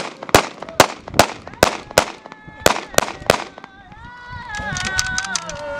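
Rifles firing a gun salute into the air: about nine sharp shots in quick, uneven succession over the first three and a half seconds. Then people's long, high-pitched wavering cries.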